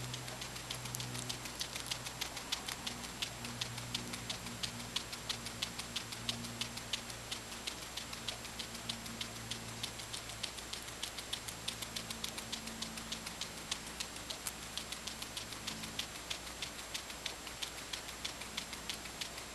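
Guinea pig chewing corn silk: a fast, even run of crisp chewing clicks, about five a second.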